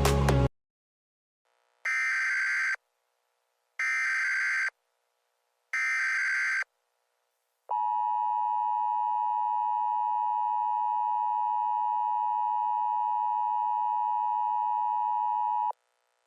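The end of a piece of music cuts off. Then come the three short buzzy data bursts of an Emergency Alert System SAME header, each just under a second long and about two seconds apart. They are followed by the two-tone EAS attention signal (853 and 960 Hz), a steady harsh tone that lasts about eight seconds and cuts off abruptly.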